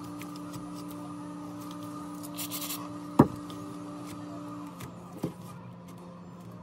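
Handling sounds of a phone repair over a steady low hum: a brief rustle, then a sharp click about three seconds in as a thin steel pry blade meets the phone's glass back, and a softer knock a couple of seconds later.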